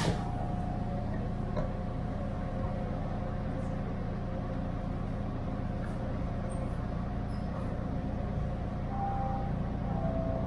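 Subway train standing at a station platform, its onboard equipment giving a steady low hum with a faint steady tone above it. One short click right at the start.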